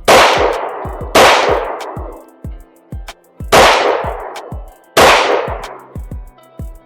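Four handgun shots, unevenly spaced: about a second apart, then two seconds, then a second and a half. Each trails off in a long echo.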